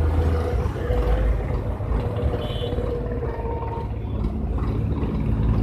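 Sonalika 750 DI tractor's diesel engine running steadily under heavy load, hauling a trolley overloaded with logs.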